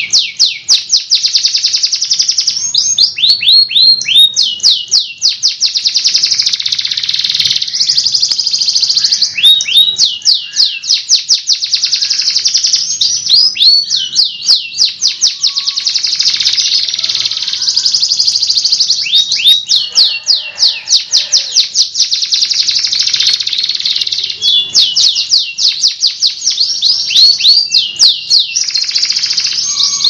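Canary singing a continuous, high song of long rolling trills and quick runs of repeated sweeping notes, with hardly a pause between phrases.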